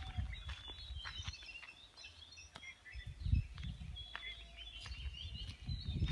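Several birds chirping and calling, with many short, high notes overlapping throughout. Irregular low rumble on the microphone runs underneath.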